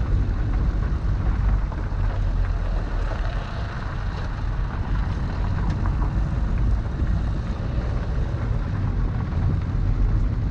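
Land Rover Santana 109's engine running steadily at an even pace, with a deep, low rumble.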